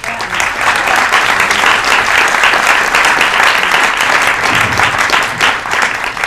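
Audience applauding: dense, loud clapping that tails off near the end.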